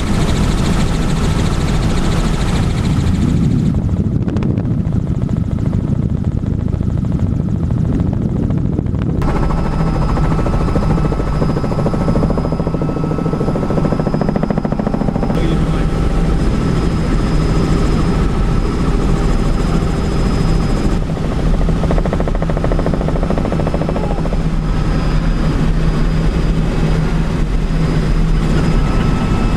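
Helicopter running in flight, heard from inside the cabin: a loud, steady drone of rotor and engine with a thin steady whine above it. The sound shifts abruptly about 4 and 9 seconds in.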